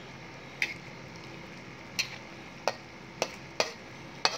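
Metal spatula stirring a saucy tofu stew in a metal wok, knocking and scraping against the pan in about six sharp clicks at uneven intervals, over a faint steady simmer.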